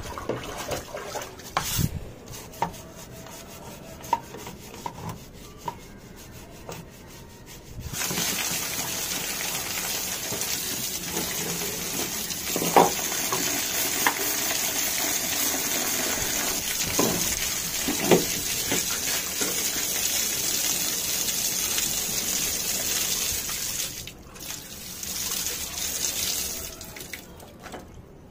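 Water being swished and scrubbed over a car intercooler, then from about eight seconds a steady rush of running water with splashes as the intercooler is rinsed and rubbed, dropping away about four seconds before the end.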